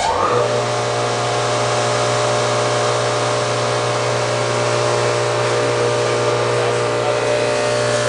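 Durovac PowerLift 40-horsepower industrial vacuum switched on: a quick rising whine as it spins up in the first half second, then steady running with a strong hum and a loud rush of air.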